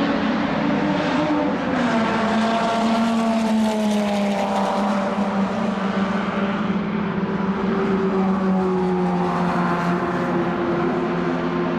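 1960s racing car engines running hard, with more than one engine note at once: one held steady while others fall and rise again as the cars go by and accelerate.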